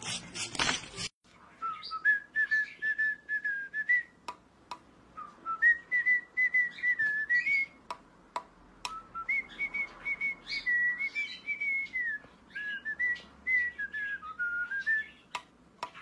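White cockatiel whistling a tune: a long string of clear, stepped notes with short breaks between phrases, and a few sharp clicks. A rough, noisy sound fills the first second and cuts off before the whistling starts.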